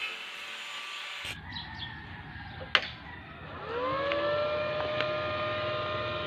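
A sharp click, then the Mitsubishi MMA 200 inverter welding machine powering up: a whine that rises in pitch and settles into a steady tone with overtones, typical of its cooling fan spinning up. Background music is heard briefly before the click.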